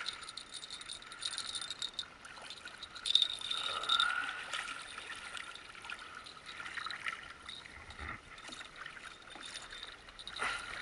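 Water sloshing around a kayak, with scattered clicks and rattles of fishing tackle as a hooked fish is reeled in.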